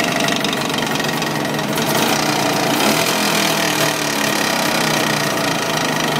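Jawa 638 two-stroke twin engine running hot with a steady, rapid knock. The knock shows up only once the engine is fully warm; new cylinders, piston rings and wrist-pin needle cages have not cured it, and its cause is unknown.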